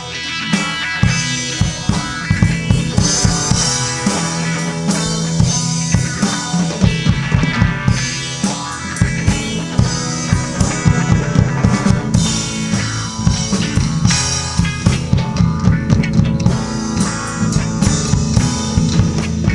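Live rock band playing: distorted-free electric guitar over a driving beat on a Yamaha drum kit with steady bass drum and cymbal hits.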